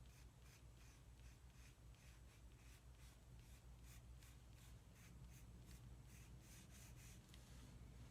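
Faint, quick repeated strokes of a drawing tool scratching across paper during a quick line sketch, over a low steady hum.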